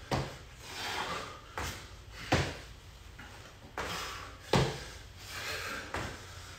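Sneakers landing on a concrete floor during single-leg hops, a dull thud every second or two, some landings louder than others.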